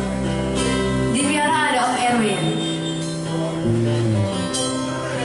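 Live acoustic band playing: acoustic guitar with bass and keyboard holding steady notes, and a woman's voice gliding over it for a moment about a second in.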